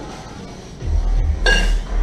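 Background music, with a single ringing metallic clink about a second and a half in: a pair of kettlebells knocking together as they drop from overhead into the rack position.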